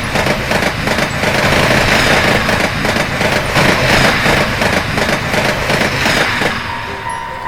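Train passing, a steady noisy rumble that holds for several seconds and eases off near the end, when a steady tone comes in.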